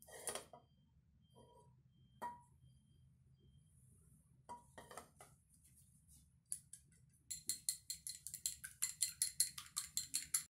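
A few separate clinks and knocks of kitchenware, then, from about seven seconds in, rapid even clinking of chopsticks against a ceramic bowl, about six or seven strikes a second, as a raw egg is beaten.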